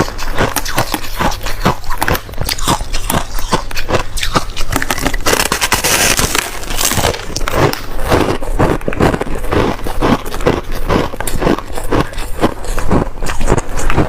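Crushed ice being bitten and chewed close to the microphone: rapid, loud crunches, several a second, with a denser stretch of crackling about six seconds in.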